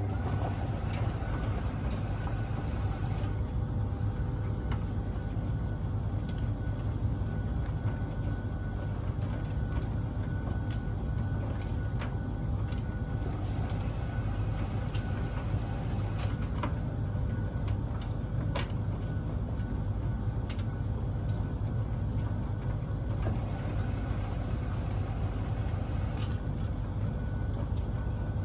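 Beko DSX83410W condenser tumble dryer running with a steady, low humming drone from its condensing water tank, with a few faint ticks. The noise is an awful lot louder than it should be, pointing to a fault in the condensing tank area.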